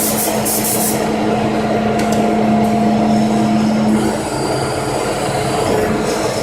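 Hydraulic tile press's pump unit running, a loud steady hum over mechanical noise; the hum's tone drops out about four seconds in while the machine noise carries on.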